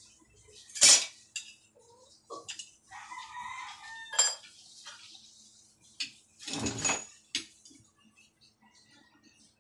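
Metal parts and tools clanking and rattling as they are handled, with a sharp clack about a second in and a longer rattle near the two-thirds mark. A rooster crows in the background partway through.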